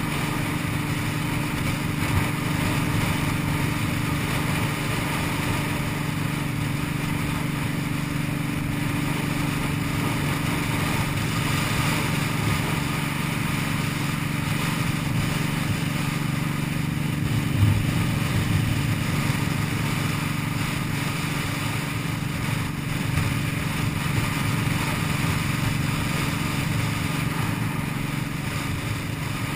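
Cruiser motorcycle engine running at a steady speed while riding, with wind noise over it. A brief knock sounds a little past halfway.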